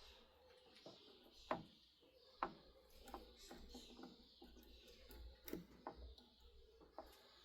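Faint metal clicks and knocks, about half a dozen at irregular spacing, from the gears and selector of a Kerry lathe's gearbox being turned and set by hand.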